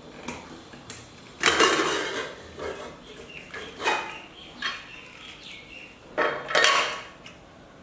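Stainless-steel pressure cooker lid being worked loose and lifted off the pot: a string of short metal scrapes and clanks, the loudest about a second and a half in and again near the end.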